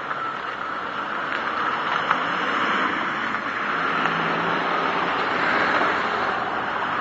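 Lexus LS460 moving with a steady scraping hiss from a wheel that gradually gets louder, a few small clicks on top. The owner takes it for the brake rotor rubbing against its dust cover.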